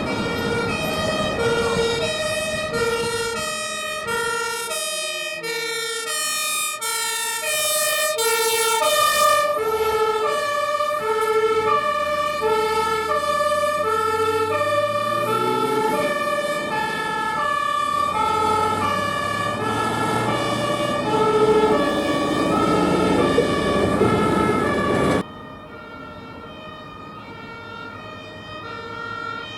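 German fire engine two-tone sirens (Martinshorn) sounding, high and low notes alternating; around 7 to 10 s in two sirens overlap out of step. A truck engine accelerates underneath from about 10 s. About 25 s in the sound drops abruptly to a quieter two-tone siren.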